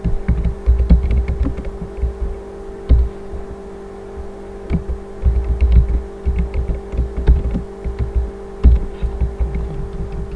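Typing on a computer keyboard: irregular keystroke clicks, each with a low thump, over a steady electrical hum.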